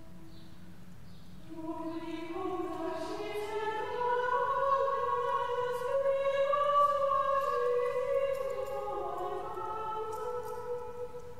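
Choir singing a slow hymn in long held phrases. A held note ends about a second in, then a new phrase begins, swells to its loudest around the middle and eases off near the end.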